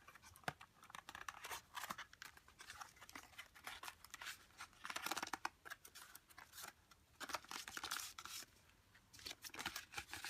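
Cardboard box and paper packaging being handled: irregular rustling, scraping and crinkling with scattered light taps and clicks as the contents are lifted out.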